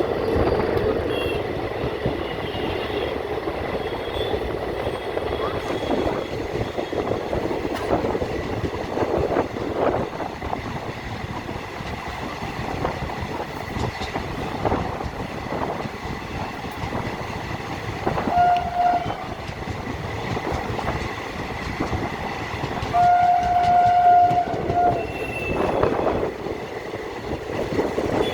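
Passenger train running on track, a continuous rumble with wheels clacking over rail joints. A steady tone sounds twice, briefly about two-thirds of the way in and for about two seconds near the end, the loudest moment.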